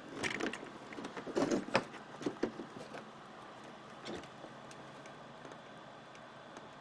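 Handling noise of hands feeling around a plastic monitor casing for its adjustment controls: a flurry of clicks, knocks and rustles in the first three seconds, one more knock about four seconds in, then quiet.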